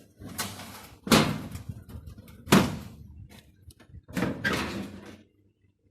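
Desktop computer case being handled as it is opened: two sharp knocks about a second and a half apart, with sliding and scraping noise around them and another scrape near the end.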